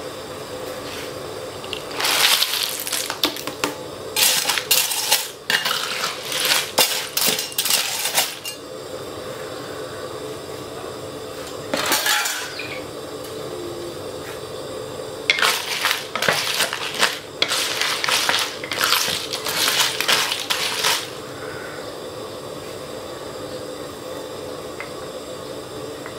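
Cockles in their shells clattering against a metal wok in two long spells of rattling clinks, one about two seconds in and one from about fifteen to twenty-one seconds, with a short clatter in between. Underneath, tamarind sauce bubbles steadily.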